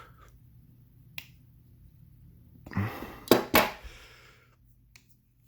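Split key ring and knife blade clicking as the ring is pried and forced through a drilled hole: a faint tick about a second in, then a scrape and two sharp metallic clicks close together as the ring goes through.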